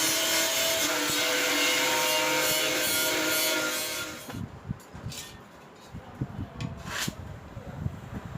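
A power tool grinding or sanding, running steadily with a steady whine, then stopping about four seconds in. A few light knocks and clicks of handling follow.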